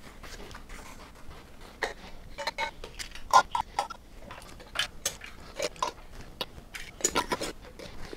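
Flat metal canning lids set down one by one onto the rims of glass mason jars: a scatter of light clicks and clinks, the loudest about three and a half seconds in.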